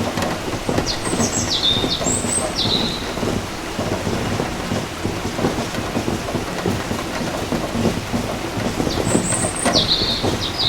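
Steady heavy rain pattering on surfaces, with a bird's short high calls twice, about a second in and again near the end.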